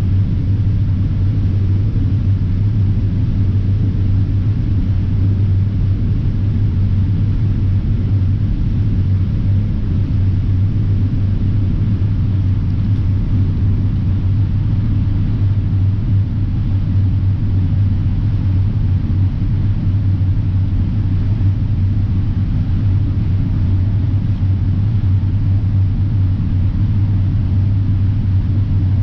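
John Deere X9 1000 combine running under load while harvesting corn, heard from inside the cab: a loud, steady, deep drone that does not change.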